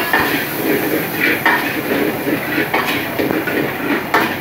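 Stir-frying noodles and garlic in a steel wok over a high-flame gas wok burner: the burner runs steadily while the metal ladle scrapes and clanks against the wok several times, with the food sizzling.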